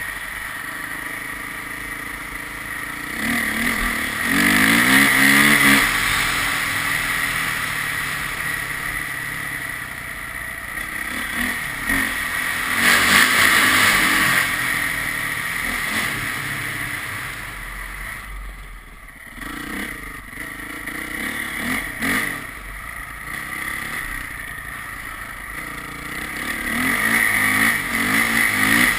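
Vehicle engine accelerating hard several times, its pitch climbing on each pull, about four seconds in, around thirteen seconds and again near the end, easing off to a lull in between, over steady road and wind noise.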